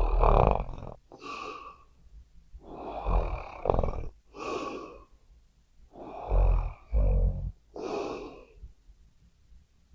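A sleeping person snoring loudly: three breath cycles about three seconds apart, each a deep rough snore followed by a shorter, breathier one, with quiet pauses between.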